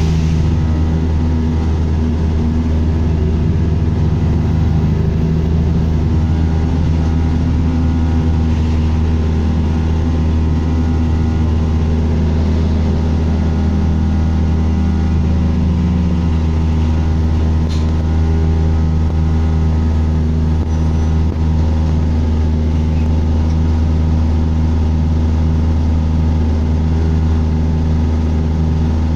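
Bus engine and drivetrain running, heard from on board: a loud, steady low drone with several whining tones above it that drift a little in pitch in the first half, the weird noise the bus is making.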